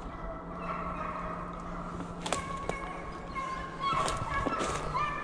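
Hunting dogs baying and yelping, short pitched cries that come more often in the last second and a half, along with a few crunching steps in dry leaves.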